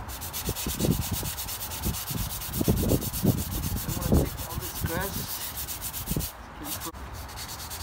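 Painted car fender being hand-sanded with fine 320-grit sandpaper, a quick back-and-forth scratchy rubbing that stops about six seconds in. This is the last, fine sanding of a rust spot before primer.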